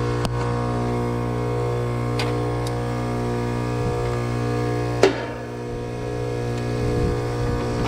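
Steady electrical hum of a Trane heat pump condenser unit running, made of a strong low tone with many even overtones. A few light clicks and one sharp knock about five seconds in.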